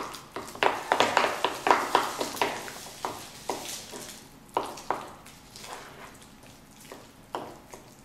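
A utensil stirring chopped jalapeño into a bowl of chunky guacamole, with wet squishing and quick irregular clicks and scrapes against the bowl. The clicks come thick for the first couple of seconds, then thin out to an occasional tap.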